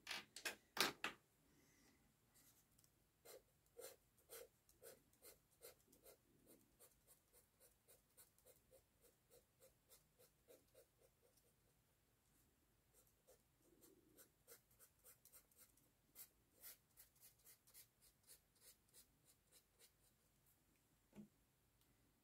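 Felt-tip marker scratching across sketchbook paper in quick, short hatching strokes, about three a second, as an area is coloured in. A few louder strokes come at the start, and there is a short pause about halfway through.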